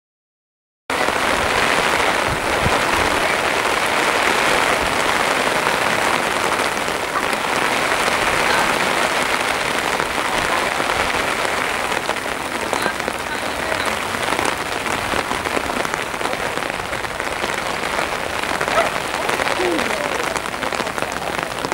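Steady rain falling, a loud even hiss that cuts in abruptly about a second in after silence.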